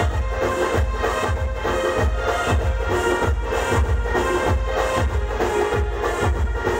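Band music with a heavy bass drum beat about twice a second under a held, electronic-sounding melody.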